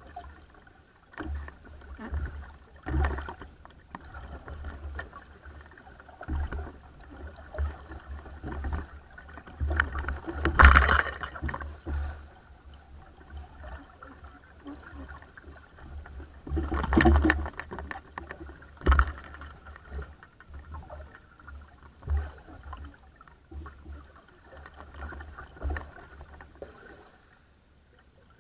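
Water splashing and rushing against the hull of a small wooden sailing dinghy under way, with wind buffeting the microphone in irregular gusts. The loudest splashing surges come about ten and seventeen seconds in.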